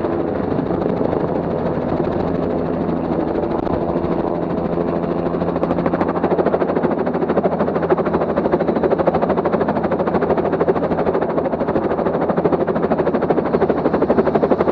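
Quadcopter drone's motors and propellers buzzing steadily in flight, heard close through its own onboard camera, with a fast flutter growing stronger about six seconds in.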